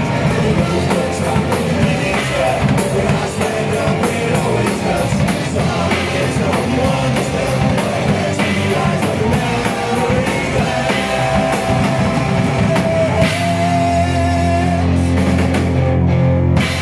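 Live punk rock band playing loud, with drum kit, electric guitars, bass and a singer. About fourteen seconds in the drums stop and a held chord rings out.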